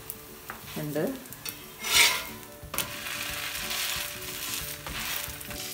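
Parotta frying on a hot tawa, sizzling, with a metal slotted spatula pressing and scraping on the flatbread and pan. There is a loud burst of noise about two seconds in, then steady sizzling.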